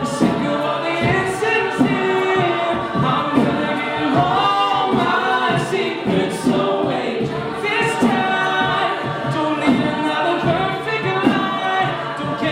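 A cappella vocal group singing in layered harmony over a steady beat.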